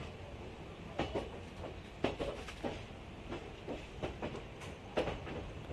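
Passenger train coach running along the track: a steady rumble with wheels knocking over rail joints and the coach rattling, in irregular knocks about once a second.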